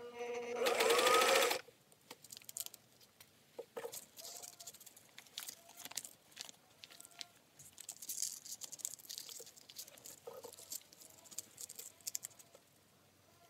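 Singer 500A sewing machine running in one short fast burst about half a second in, its motor whine rising as it stitches, then stopping. Afterwards there are scattered soft clicks and light rustling as the fabric is handled.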